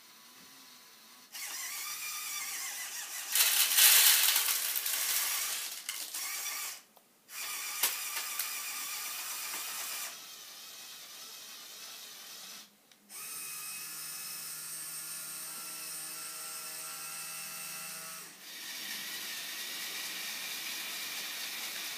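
Small electric motors and plastic gears of a Lego Technic Liebherr R 9800 model excavator whirring in several separate runs, stopping briefly twice, as it works its bucket and arm. Between about three and six seconds in, a louder rushing clatter of pellets pouring from the tipped bucket into the dumper truck's bed.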